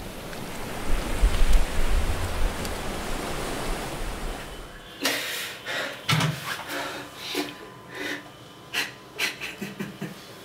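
Sea waves washing up on a beach, a steady rushing noise with a low rumble, for about the first five seconds. Then a man breathing hard and gasping in about seven short, sharp breaths.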